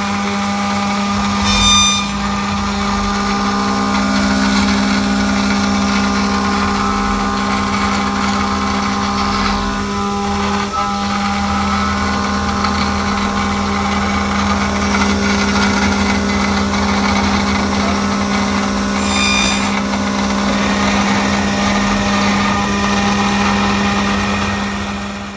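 Techno HDS CNC router's spindle milling aluminum plate: a steady, pitched machine hum with several high tones and the hiss of the cutter chipping through the metal. Two brief sharp ringing hits come about two seconds in and again near twenty seconds.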